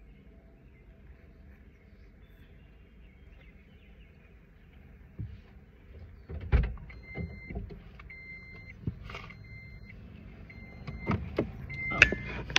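A person getting into a car: the driver's door opening and several knocks and thumps from climbing into the seat, the loudest a sharp knock near the end. From about seven seconds in, the car's warning chime repeats a high, even beep roughly once a second.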